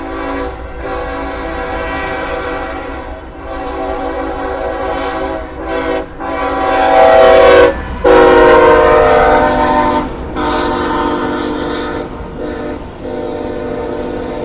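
Multi-chime air horn of a CSX GE Evolution-series freight locomotive sounding a series of blasts for a road crossing, over the low rumble of the passing train. The horn is loudest about halfway through, and its chord drops in pitch about 8 seconds in as the locomotive goes by.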